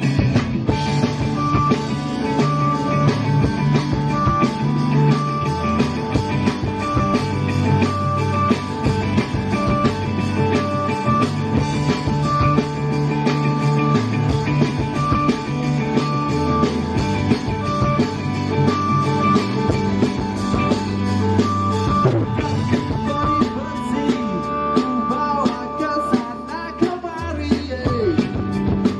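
Rock band playing an instrumental passage on guitar and drum kit, with a short guitar figure repeating over a steady beat.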